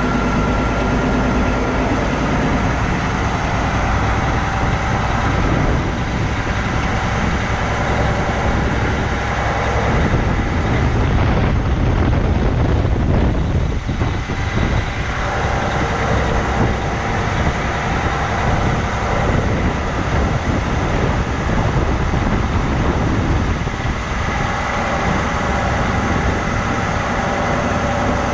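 Kenworth semi-trailer truck's diesel engine running under load as the loaded rig pulls slowly away and turns, heard close to the exhaust stack.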